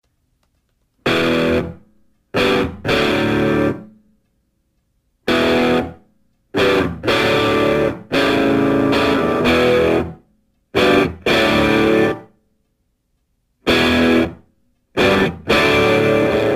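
Background music: distorted electric guitar playing chords in short stabs that ring out, with gaps of silence between them, running on without breaks near the end.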